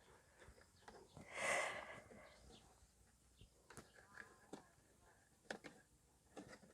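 Faint handling noises of pressure-washer parts being unpacked: a brief hissing rush about a second and a half in, then a few light scattered clicks and taps.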